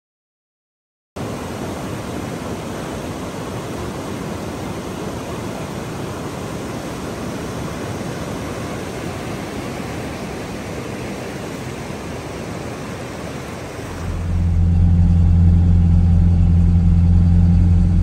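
Rushing river rapids, an even roar of water that starts about a second in. About 14 seconds in it gives way to a louder, steady low drone of a car heard from inside the cabin.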